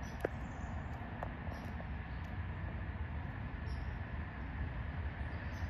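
Steady low outdoor background rumble, with faint short high-pitched chirps now and then and one sharp click right at the start.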